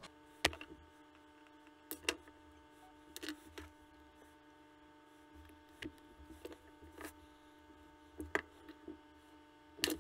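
Irregular sharp clicks and snips of hand tools, wire cutters and strippers, cutting a short wire jumper and being put down on the workbench, over a faint steady electrical hum.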